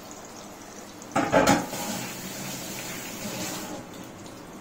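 Marinated chicken pieces frying in oil in an aluminium pot on a gas stove, a steady soft sizzle, with a short loud burst of noise about a second in.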